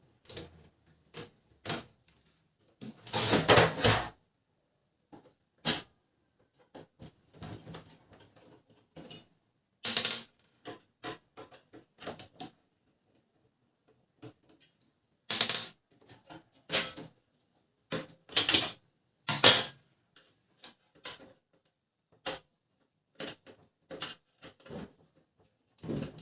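Plastic parts of a Canon LBP 2900 laser printer being handled during disassembly: irregular clicks and knocks with a few longer scraping, rattling stretches as pieces are unclipped and pulled out.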